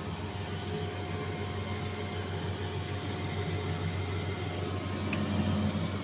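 Beverage display fridge running with its condenser fan reconnected: a steady low electrical hum from the compressor and fans over a light airy rush.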